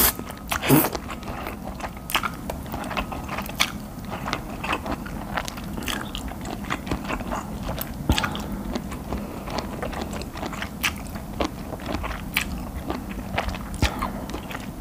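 Close-miked eating of spicy stir-fried noodles with octopus: wet chewing, biting and frequent small mouth clicks and smacks. A faint repeating electronic beep fades out in the first few seconds.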